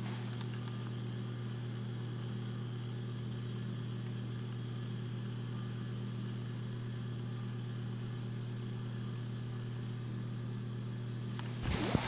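Steady low buzzing hum from an unseen electrical machine, which the recorder takes for a transformer and generator running in the apartment below. A brief, louder noise cuts in right at the end.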